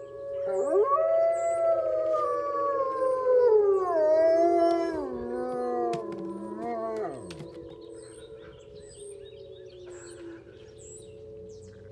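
Two dogs howling together. One long howl rises about half a second in, slides down in pitch and breaks off around seven seconds. The other is a steadier, lower howl that fades out around ten seconds. Birds chirp faintly in the background.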